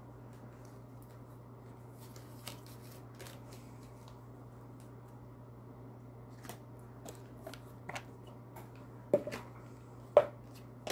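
A deck of oracle cards being handled and shuffled: scattered light card clicks and flicks that grow busier in the second half, with two sharp snaps of the cards near the end, over a low steady electrical hum.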